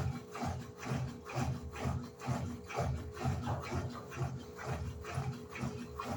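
Electrolux LED14 top-loading washing machine agitating: the agitator swings back and forth about twice a second, churning the wash water and clothes with an even, rhythmic swish.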